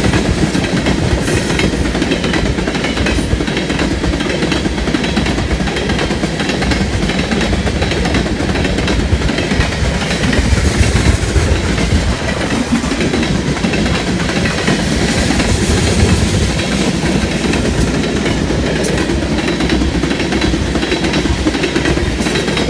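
Railroad tank cars of a freight train rolling past at close range: a steady rumble of steel wheels on rail, with occasional sharp clicks.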